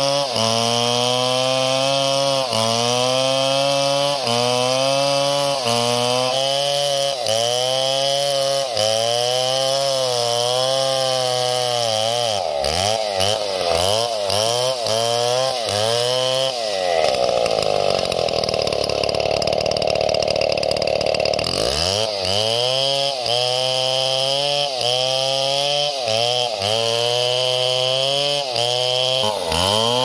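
Stihl chainsaw ripping lengthwise along a large log. The engine pitch sags and recovers rhythmically, about every second and a half, as the chain is pressed into the wood. For a few seconds past the middle it holds a steady high pitch before the dipping resumes.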